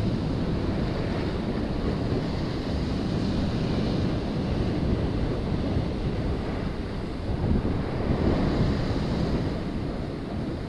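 Ocean surf breaking and washing against a rock ledge, with wind buffeting the microphone. A louder surge comes a little past the middle.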